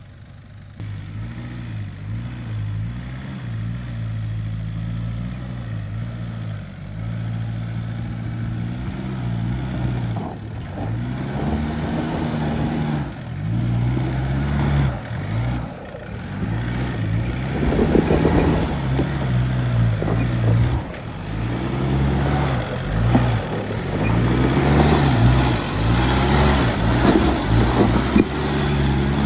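A 4WD's engine under load, revving up and easing off again and again as it crawls a rough off-road track. Bursts of louder rough noise come about 18 seconds in and over the last few seconds.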